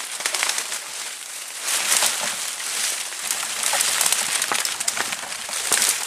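Leaves and twigs rustling and crackling, with many small irregular clicks, as someone pushes on foot through dense undergrowth.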